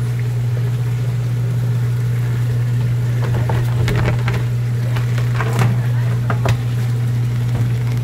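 Steady low hum of a live-fish tank's water circulation pump, with a few short knocks in the middle.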